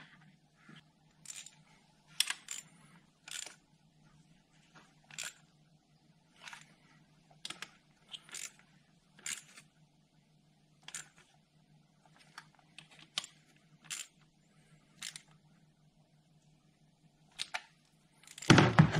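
Hand socket ratchet clicking in short bursts, roughly one a second, as the coil pack retaining bolts are run down and tightened. A louder, longer noise comes near the end.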